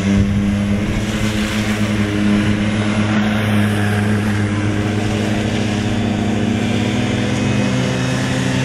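Small youth ATV engine running steadily as the quad rides across the dirt, its pitch rising a little near the end.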